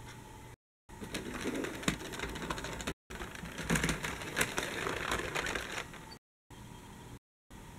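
Toy tram rolling along plastic track, a rattling run of quick clicks that is loudest as it passes. Several abrupt cuts to complete silence break it up, and after about six seconds only a faint steady hiss remains.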